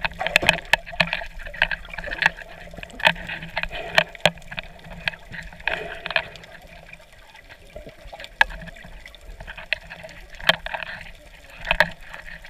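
Underwater sound picked up by a submerged camera: water sloshing and gurgling against it, with many sharp clicks and crackles, quieter for a few seconds in the middle.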